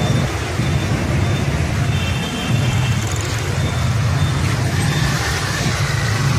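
Busy city street traffic: a steady rumble of motorbike and car engines passing.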